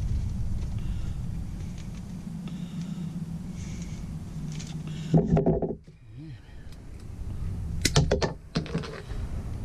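Low steady rumble, with a short clatter about five seconds in and a few sharp clicks about eight seconds in: small handling and clicking noises.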